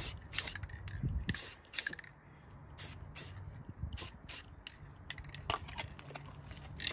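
Aerosol spray-paint can hissing in short, quick bursts, about ten separate sprays, which stop a little after five seconds.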